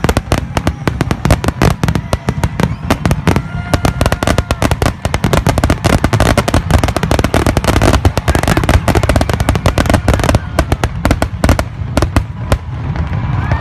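Fireworks going off in a rapid, dense barrage of bangs and crackles, many a second, thickest in the middle and thinning near the end.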